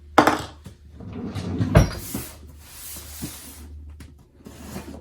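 Cardboard shipping box being handled and opened: a sharp knock, a louder thump a little before two seconds in, then about a second of rustling and scraping, with fainter handling noises after.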